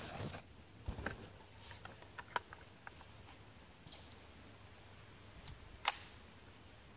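Faint clicks of a rifle being handled, then one sharp shot about six seconds in with a short ring after it.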